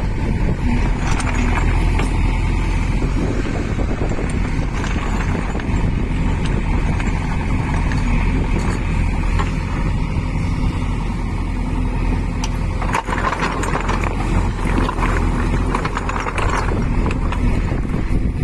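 Diesel engine of a JCB 3DX backhoe loader running steadily under working load, a constant low drone.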